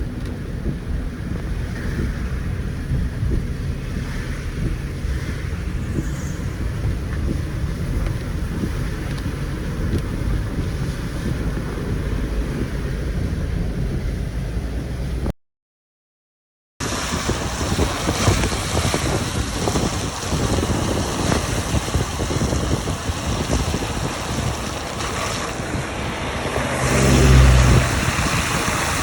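Road and engine noise heard from inside a moving car: a steady low rumble. About halfway through it cuts to silence for a moment, then comes back brighter with more wind rush. A heavier low bump comes near the end.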